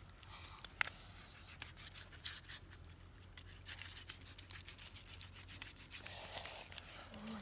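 Cleaver knife cutting and scraping through raw duck, a run of small ticks and scrapes with one sharper knock about a second in.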